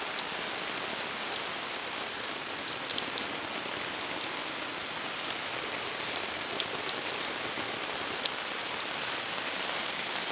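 Water spraying steadily onto a DIY silicone-coated nylon (silnylon) tarp, a constant hiss with scattered sharp drop ticks, like rain on the fabric.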